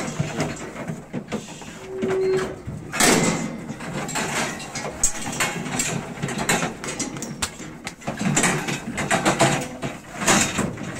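Irregular clattering, knocking and scraping, as pigs are handled in a metal livestock weighing cage, with a short steady tone about two seconds in.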